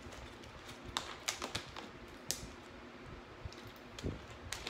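Plastic water bottle being handled, with scattered sharp crackles and clicks from the bottle and its screw cap.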